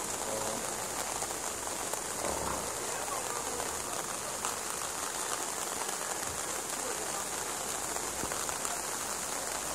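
Steady rain falling on floodwater and wet ground.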